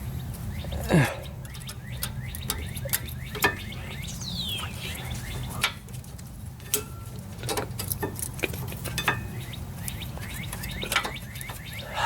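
Repeated metal clicks and clinks of a rear brake pad being pushed and wiggled against the caliper bracket's abutment clips on a 2016 Toyota Camry, the inner pad binding and refusing to seat. A low steady hum underneath.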